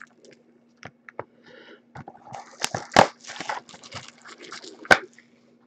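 Plastic shrink wrap being crinkled and torn off a cardboard trading-card box. There are scattered sharp crackles and taps as the box is handled, busiest in the second half.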